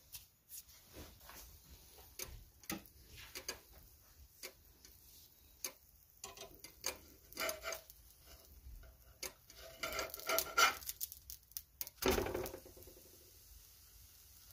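A slotted spatula tapping and scraping against a nonstick frying pan as it works under a pancake, with a louder thump near the end as the pancake is flipped over into the pan.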